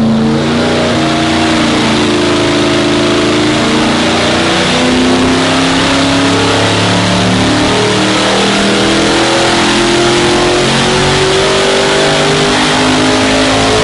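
Chrysler 440 big-block V8 with a four-barrel carburettor running under load on an engine dynamometer during its test run, the revs rising slowly over the second half.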